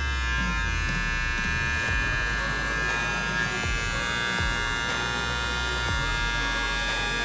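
Pritech PR2888 cordless T-blade hair trimmer switched on and running: a steady electric buzz from its motor and blade, running smoothly and evenly.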